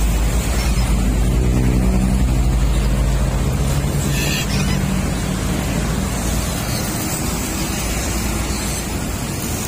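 Road traffic on a busy flyover: cars and motorcycles passing close by. A heavy vehicle's engine hum is strongest in the first half and eases off about halfway through.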